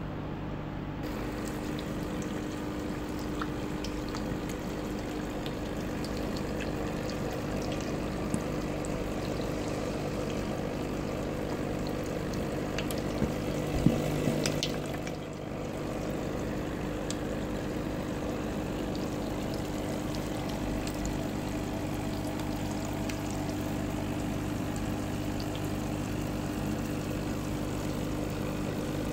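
Aquarium pump humming steadily, with water bubbling and trickling in the fish tank. There is one short knock about halfway through.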